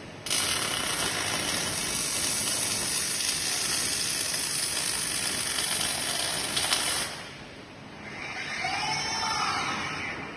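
Robotic welding arc hissing steadily for about seven seconds, starting and stopping abruptly. Then the robot's motors give a softer whine that rises and falls in pitch as the arm moves.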